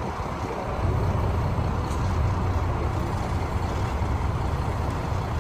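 Sightseeing bus's engine running amid street traffic, a steady low rumble.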